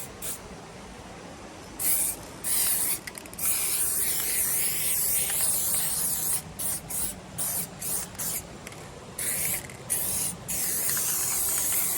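Aerosol spray paint can spraying graffiti in bursts of hiss: short sprays about two seconds in, a long spray from about three and a half seconds, then a string of quick short bursts, and a long steady spray near the end.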